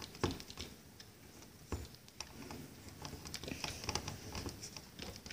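Scattered small clicks and light rattling of hands adjusting a plastic tripod head and device holder, with a sharper click a little before two seconds in and a cluster of small clicks in the second half.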